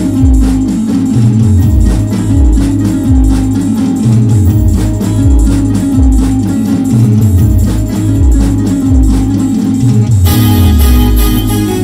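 Live timli dance music played on an electronic keyboard and a stick-played electronic drum pad: a loud, heavy bass line repeating under a quick, steady beat, with no singing. About ten seconds in, brighter and busier high percussion joins.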